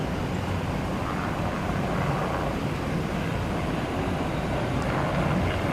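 Helicopter in flight, a steady low rumble.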